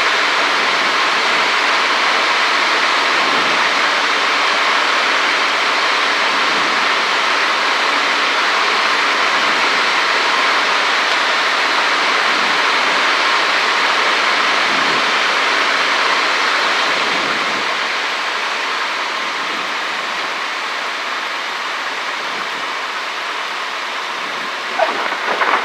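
Cabin noise of a Cessna 152 in flight: the engine and rushing airflow as a steady, loud hiss, which eases and grows quieter about two-thirds of the way through as power comes back. A few light knocks near the end.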